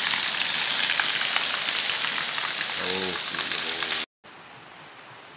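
Heavy tropical downpour hissing on cobbled pavement and roofs, loud and dense. About four seconds in it cuts abruptly to steadier, much quieter rain.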